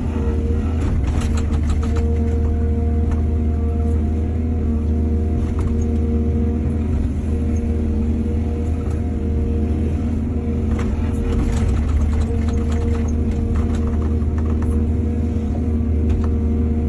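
Excavator's diesel engine running steadily, with a constant pitched hum over a deep rumble. Clusters of short knocks and rattles come about a second in and again past the middle.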